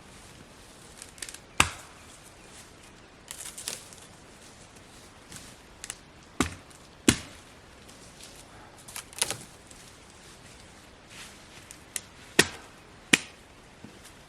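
Dry dead branches cracking and snapping as they are gathered for firewood: about seven sharp woody cracks at irregular intervals, with softer crackling and rustling in between.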